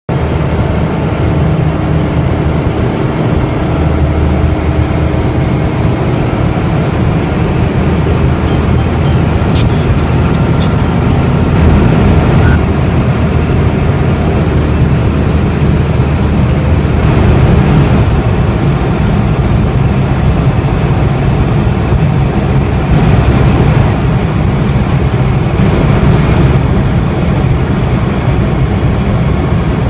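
Light aircraft's piston engine and propeller running steadily at cruise, heard from inside the cabin.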